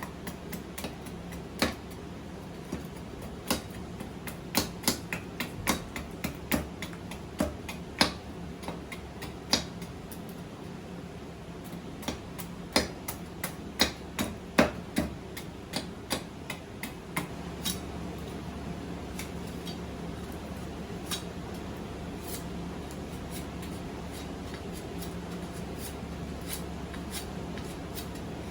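Hand carving tools cutting and chopping into a wooden spoon blank: irregular sharp knocks, at times several a second, thinning to a few scattered strikes after about 17 seconds.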